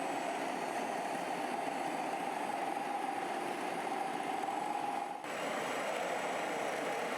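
Steady engine-like running of radio-controlled model trucks or construction machines, broken by a short dip about five seconds in.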